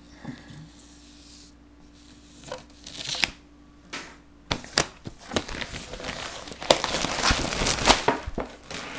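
Packaging wrap being torn and crumpled off a new skateboard deck. A few sharp crinkles come about two and a half seconds in, then steady, louder tearing and crinkling from about halfway on.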